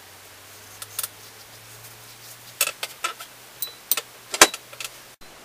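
A handful of sharp clicks and knocks, clustered from about a second in to near the end, with the loudest knock about four seconds in, over a low steady hum that cuts off abruptly near the end.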